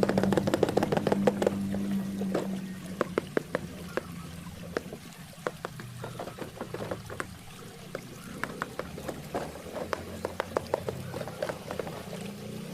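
Water trickling and pouring with many irregular sharp drips and clicks. A steady low hum fades out about two seconds in.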